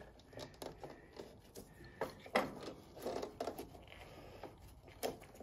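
Faint, scattered clicks and knocks of metal parts being handled as a pulley is worked into a tight spot on a riding mower.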